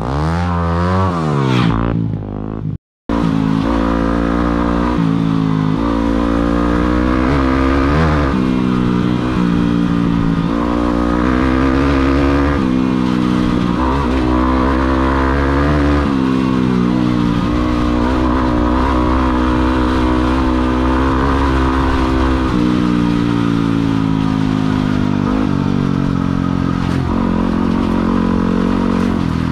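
A motor vehicle engine running and revving, its pitch rising and falling repeatedly, with a brief cut-out about three seconds in.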